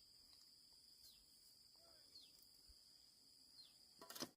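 Faint outdoor ambience: a steady high insect drone with four short, falling bird chirps spaced about a second apart. A brief louder noise comes near the end, just before the sound cuts off.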